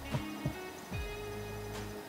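Background music with held low tones and a pair of low thumps about a third of a second apart, like a slow heartbeat. Insects chirp faintly underneath.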